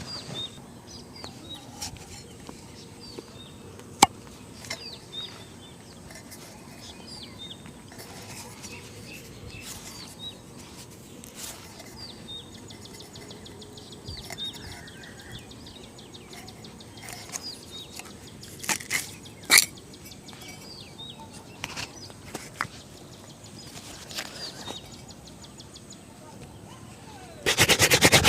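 Small birds chirping in the background, with a few sharp clicks and knocks. About a second before the end, a brush starts rubbing rapidly back and forth over a shoe during shoe polishing.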